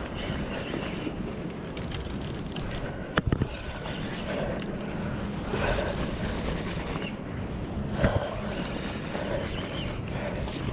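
Shimano Stella spinning reel being wound to retrieve the line, over a steady background of wind and harbour noise, with a sharp knock about three seconds in and a lighter one near eight seconds.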